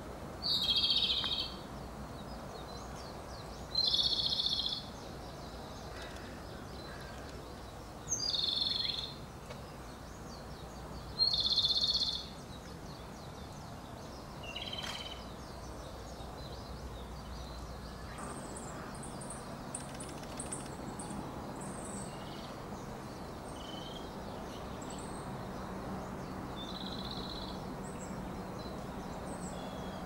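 Japanese robin (komadori) singing: four loud, high song phrases about a second each, a few seconds apart, then a weaker phrase. In the second half only faint, very high chirps and one faint phrase are heard.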